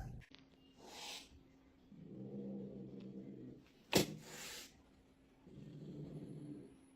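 Quiet sounds from a cat: low, drawn-out vocal sounds, with two short breathy bursts, the second led by a sharp click about four seconds in.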